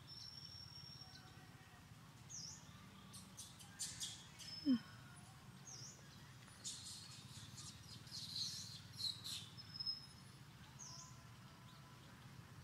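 Wild birds chirping in forest, repeated short dipping notes and thin high whistles, over a low steady hum. Clusters of close rustling and clicking come through the middle, and one short rising squeak a little over a third of the way in is the loudest sound.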